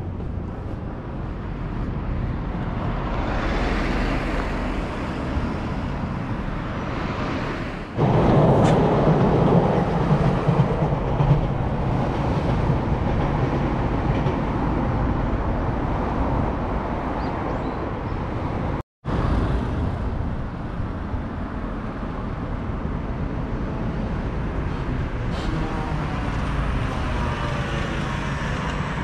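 Steady rumble of passing vehicles. It jumps abruptly louder about eight seconds in and cuts out for a moment just before the twenty-second mark.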